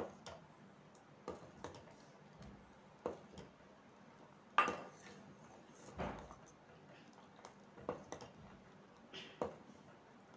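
Steel ladle stirring a thickened milk and cornflour mixture in a steel pot, knocking and scraping against the pot in faint, irregular clinks, the loudest about four and a half and six seconds in.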